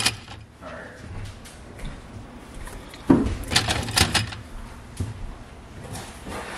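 Plastic drink bottles being set into a clear plastic organizer on a refrigerator shelf: a cluster of knocks and clatters about three seconds in, with quieter handling around it.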